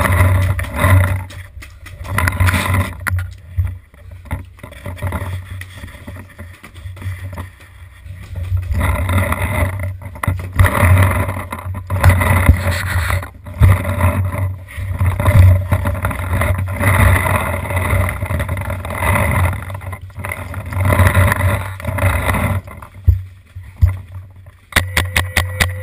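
Rumbling wind and movement noise on an action camera's microphone, swelling and fading in irregular gusts, with a few sharp knocks. Near the end, music with a steady beat begins.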